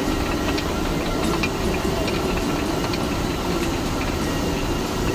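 Water-powered stone flour mill grinding wheat: the runner millstone turns with a steady, even rumble and light irregular ticking.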